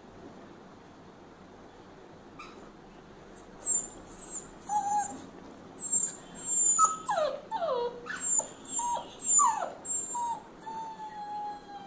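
Rottweiler puppy whimpering and whining, a string of short high whines, several dropping steeply in pitch, starting about three and a half seconds in and ending with one longer, steady whine. It is pleading to be let off its leash.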